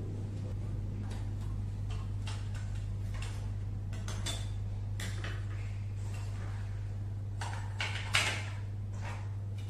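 Clicks and light knocks of a plastic weather-station sensor housing being handled as its battery compartment is opened and the cover set down, with one louder knock about eight seconds in. A steady low hum runs underneath.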